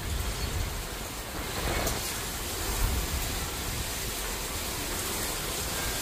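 Heavy rain pouring down steadily over a low rumble, growing heavier about a second and a half in.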